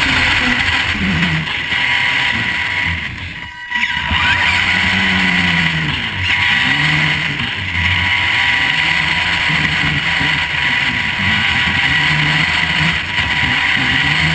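Vaterra Twin Hammers RC truck heard from its onboard camera while driving: a high steady whine from the electric motor and gears, and low pitches that rise and fall as the throttle is worked, over rough noise from the tyres on gravel. The noise briefly drops about three and a half seconds in.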